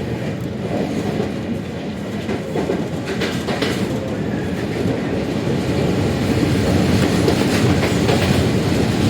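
Moving train heard from inside the carriage: a steady low rumble with bursts of clattering clicks from the wheels on the track, growing slightly louder in the second half.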